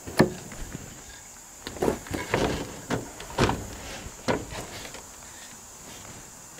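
Irregular wooden knocks and clunks of 2x4 lumber being handled and set in place: a sharp knock near the start, a quick cluster of knocks around two seconds in, then a few single knocks.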